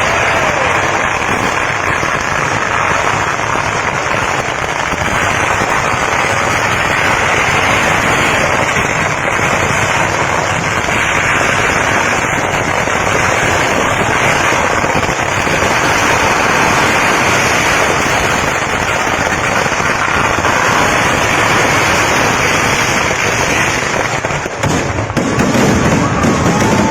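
Festival fireworks barrage: a continuous crackle of many firecrackers going off in rapid, unbroken succession. About 24 seconds in, louder, deeper bangs join in.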